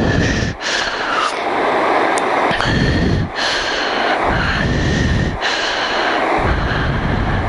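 A person breathing hard close to the microphone, about four heavy breaths that blow into it, each in a low rumble with a hiss between.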